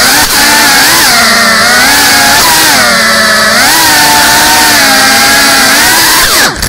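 GEPRC Cinelog 35 cinewhoop's brushless motors and propellers whining as it flies fast indoors, the pitch swooping up and down with each throttle change. Near the end the pitch falls sharply and the sound drops away.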